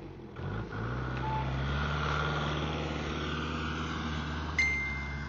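Engine of a snow-moving machine running steadily, dipping and then revving back up about half a second in. A single short high beep sounds near the end.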